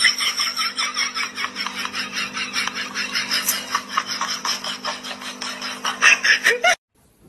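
A person laughing hard in a fast, even run of ha-ha pulses, dubbed over the clip. It cuts off suddenly near the end.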